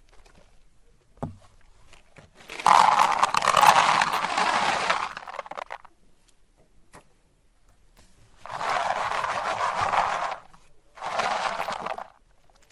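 Meat grinder crunching and grinding hard candy in three bursts: a long one a few seconds in, then two shorter ones near the end. A single knock comes about a second in.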